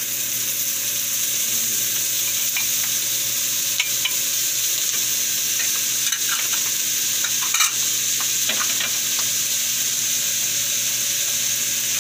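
Sliced pork lung and heart sizzling steadily in hot rendered pork fat in a wok as they are stirred with a wooden spatula, with a few clicks of the spatula against the pan, the loudest about two-thirds through.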